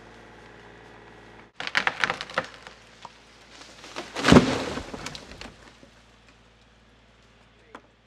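A quick run of sharp wooden cracks, then a single heavy crash a couple of seconds later that dies away. A steady low hum cuts off abruptly just before the cracks.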